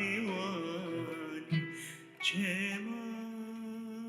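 Music with a singing voice holding long, wavering notes, briefly dropping away about two seconds in before a new note starts.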